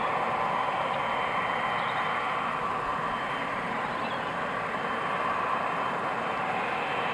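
Boeing 777 jet engines running at taxi power: a steady, even rushing hiss with a faint whine.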